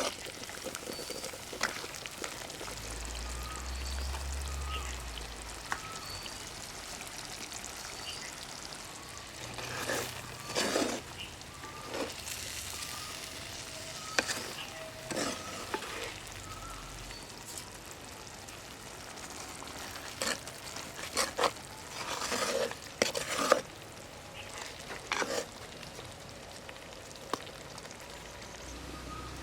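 Chicken curry sizzling in a pot, a steady frying hiss, while a spoon stirs and scrapes against the pot now and then.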